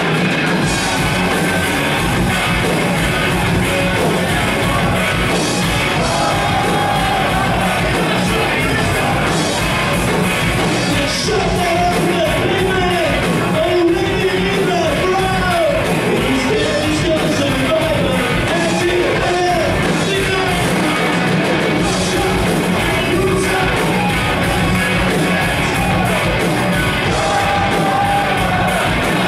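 Live rock band playing loud: electric guitars, bass and drums, with shouted singing over them through the middle.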